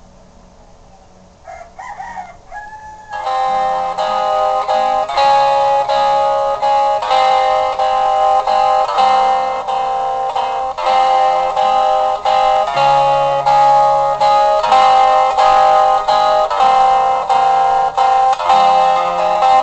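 A rooster crows briefly about a second and a half in. Then, about three seconds in, plucked-string music starts and plays a steady tune of repeated notes over a moving bass line.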